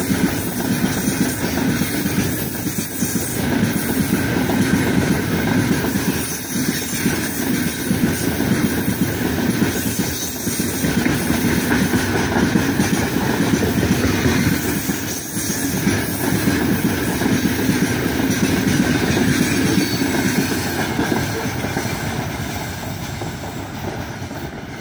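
Freight train's open-top gondola wagons rolling past on the rails, a steady loud rumble of steel wheels on track. It fades over the last few seconds as the tail of the train moves away.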